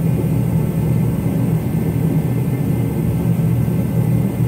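Steady low drone of running machinery, even and unchanging.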